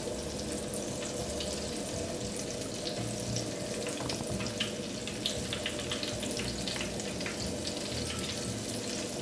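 Battered cauliflower pieces deep-frying in a pot of hot oil: steady sizzling with many small crackles throughout.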